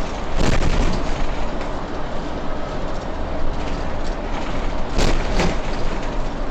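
Solaris city bus driving at speed, heard from the driver's cab: steady engine and road noise. Two brief louder rushes stand out, one about half a second in and one around five seconds in.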